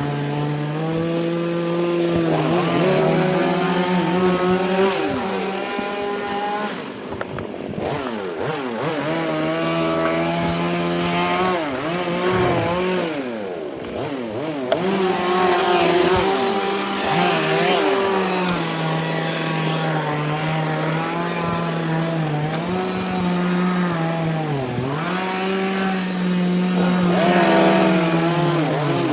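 Two-stroke chainsaw running at high revs while cutting teak, its engine pitch sagging under load and picking back up several times.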